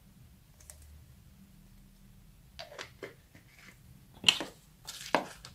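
Craft handling noises with small plastic pieces: quiet at first, then a few light clicks and taps about halfway through, and two louder sharp clicks near the end.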